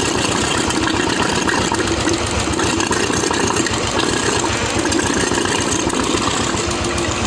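Royal Enfield Bullet Electra UCE single-cylinder engine idling steadily after its cylinder head has been refitted, with the oil circulating properly.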